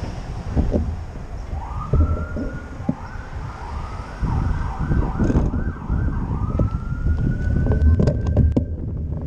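Emergency vehicle siren over low traffic rumble: a rising wail, then a run of short rising sweeps about two a second, then one long slow rise that cuts off near the end. Cars pass close by.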